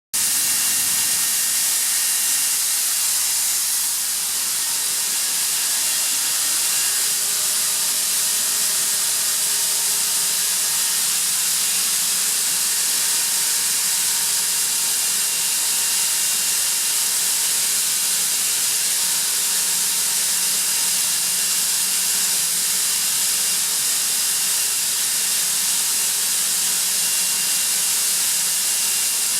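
Atlas Copco ZT132FF oil-free rotary screw air compressor running: a steady, loud hiss of rushing air with faint steady tones under it.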